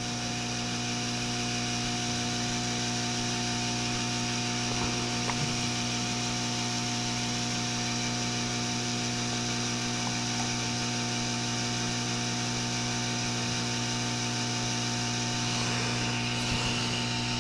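Sparkfun hot air rework station blowing hot air onto a circuit board: a steady hum with an even airy hiss. The board is being heated to melt the solder under a chip so that it can be removed.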